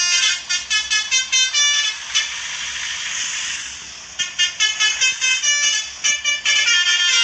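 Multi-tone Basuri "telolet" horn playing a quick melody of short toots. The notes break off for about two seconds in the middle, where a hiss fills in, then start again.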